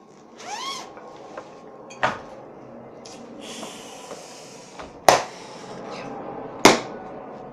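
A duffel bag being opened and rummaged through: rustling and scraping, with a knock about two seconds in and two sharp, loud knocks about five seconds in and again near the end.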